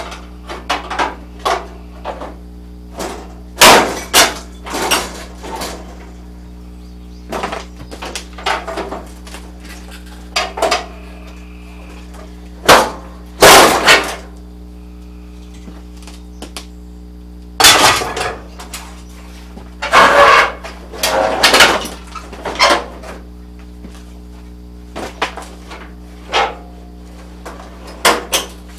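Irregular metal clanks and knocks of hand tools and loose parts as the radiator support of a 1981 Ford Bronco is unbolted, some strikes short and sharp, others ringing briefly, with the loudest clusters in the middle stretch.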